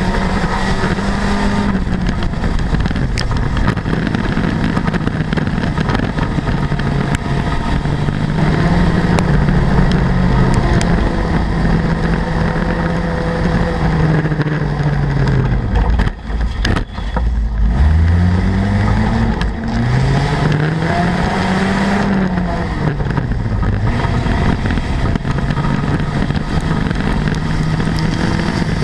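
Front-wheel-drive dirt-track race car's engine heard from inside the cockpit under racing load, revs rising and falling repeatedly. A little past halfway it drops away for a moment, then climbs again from low revs.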